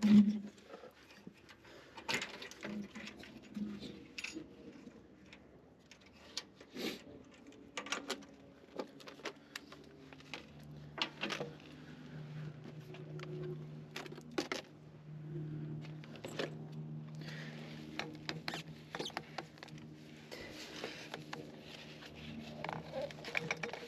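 Scattered clicks, taps and knocks of tools and heater parts being handled during repair work, with a steady low hum coming in about nine seconds in.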